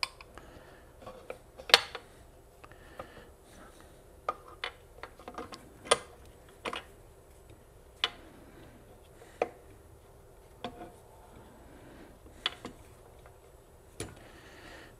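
Metal engine parts clinking and knocking as the piston and connecting rod are worked out of an open engine crankcase: about a dozen separate sharp clinks, spread out with quiet between them.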